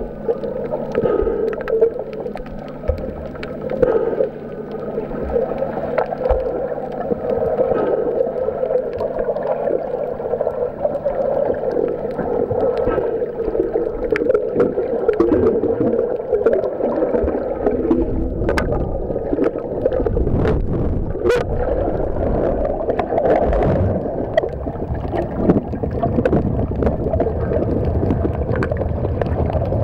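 Muffled underwater sound of moving water and bubbles, heard from below the surface, with many small clicks and a steady low hum; a low rumbling of water grows from about two-thirds of the way in.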